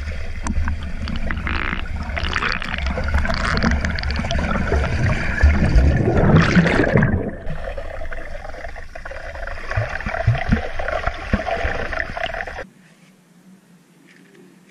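Swimmer kicking through pool water, heard underwater: bubbling, gurgling and splashing, loudest about six to seven seconds in. It cuts off suddenly near the end to much quieter open air.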